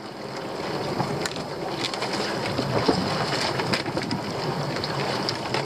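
Wind buffeting the microphone and sea water slopping around a small open boat, with a few scattered knocks and rattles as a crab pot is handled on the gunwale.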